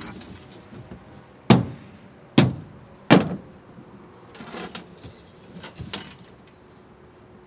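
Three loud thumps less than a second apart on a boat's aluminum diamond-plate deck as a freshly landed coho salmon flops in the landing net, followed by a few softer knocks.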